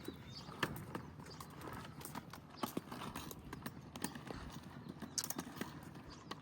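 Footsteps on an outdoor path: irregular clicking taps while walking, over a low background hiss.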